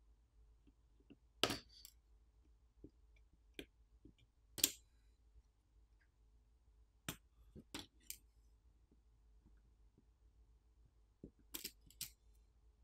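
Scattered small clicks and taps, about a dozen spread out with gaps of a second or more, from tools working on a Google Pixel 9 smartphone's internals as its cable connectors are unclipped.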